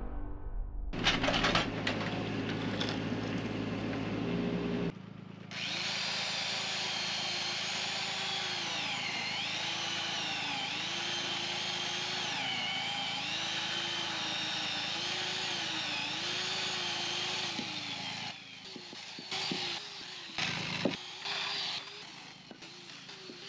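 A power saw cutting, its motor pitch dipping and recovering again and again as it works, then a few short separate knocks near the end.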